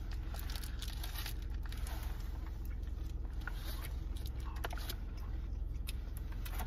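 A man biting into and chewing a burger, with its paper wrapper crinkling in his hands, over a steady low hum.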